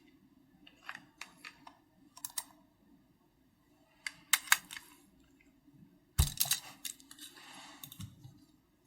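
Keystrokes on a custom mechanical keyboard with Keychron Red linear switches and XVX keycaps, typed in short, sparse bursts with pauses between them. The loudest group comes about six seconds in, led by a heavier thud.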